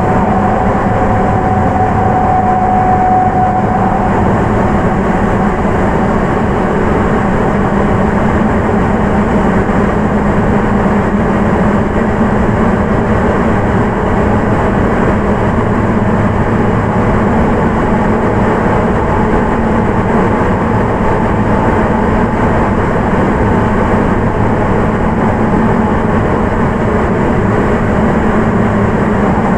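Sapporo Municipal Subway 9000-series rubber-tyred train running through a tunnel, heard from inside the car. A steady, loud rumble carries a thin whine from its Hitachi IGBT VVVF inverter and traction motors; the whine is strongest for the first few seconds, fades, and comes back near the end.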